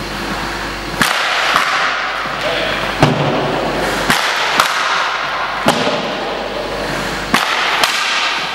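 Ice hockey pucks being shot at a goaltender: about eight sharp cracks of stick on puck and puck on pads, some in pairs about half a second apart.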